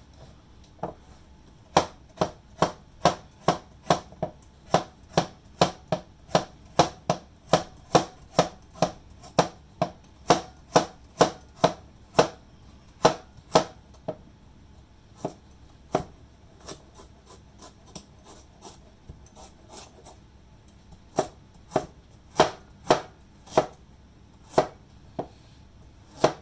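Knife slicing a peeled carrot on a cutting board: sharp, even knocks about two a second. The knocks thin out and soften for a few seconds in the middle, then pick up again.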